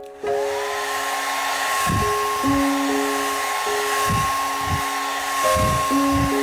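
Handheld hair dryer switched on about a quarter second in, its motor whine rising quickly and then holding steady over a rush of blowing air. It is drying wet acrylic paint on a canvas.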